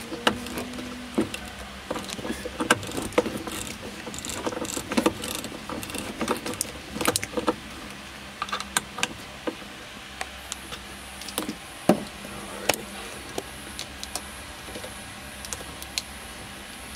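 Irregular clicks, taps and light rattles of hands handling electrical wiring and small connectors at a terminal block, busiest in the first half, with one sharper click in the second half.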